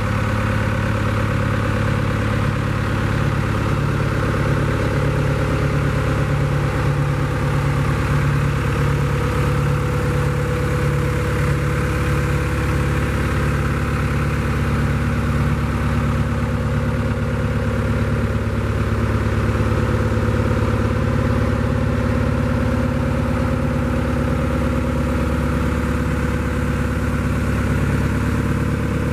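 Hitachi FH130 tracked excavator's diesel engine idling steadily.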